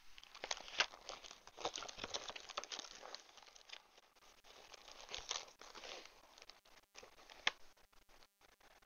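A clear plastic bag and the paper scraps inside it crinkling and rustling as hands rummage through them, with irregular crackles and one sharper crackle near the end.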